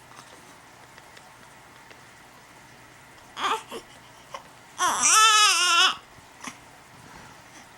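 Young baby fussing: a short whimper about three and a half seconds in, then one loud, wavering cry lasting about a second.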